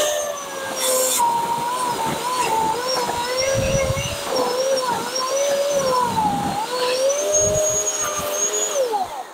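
Bosch electric chainsaw running and cutting down through dry deadwood, its motor whine dipping and wavering in pitch as the chain bites into the wood. Near the end the whine falls away as the saw is released and winds down.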